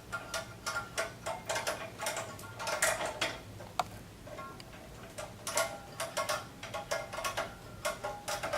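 A button knob being screwed by hand onto an inversion table's adjustable metal boom: irregular light clicks and scrapes of the parts, some with a short metallic ring.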